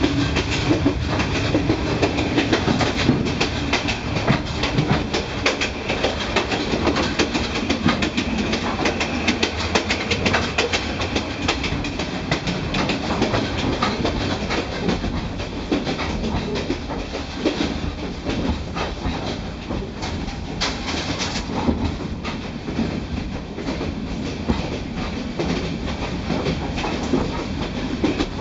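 Night passenger train running at speed, heard from inside the carriage: wheels clacking over rail joints amid continuous heavy rattling and knocking of the swaying, shaking coach.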